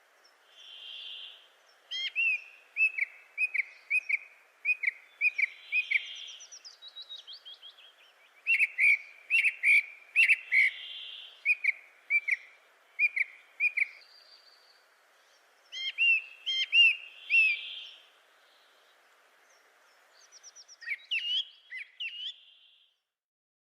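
A bird singing in repeated phrases of short, sharp chirping notes, several a second, with soft, fuzzy whistled notes recurring between the phrases. The song breaks off for a second or two between phrases, four times over.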